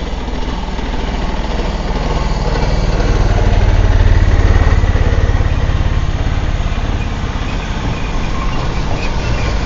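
A small engine running steadily with an even low pulse, growing louder for about four seconds and then easing off.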